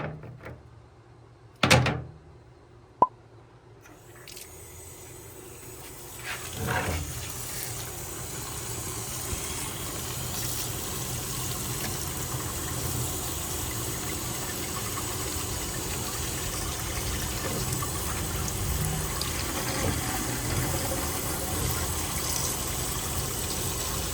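A thump and a sharp click, then from about four seconds in a steady rush of running water, as from a tap or hose, while the dusty air-conditioner filter is washed.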